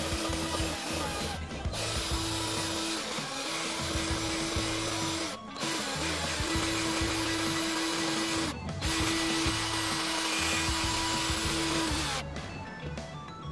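Cordless drill running with an attachment worked inside the ports of a Toyota 1ZZ aluminium cylinder head: a steady motor whine with a scrubbing hiss. It pauses briefly three times and stops near the end.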